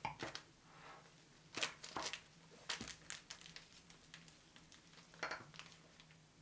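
Disposable plastic piping bag filled with red bean paste crinkling as gloved hands lift it and twist its top closed, in several irregular bursts with pauses between.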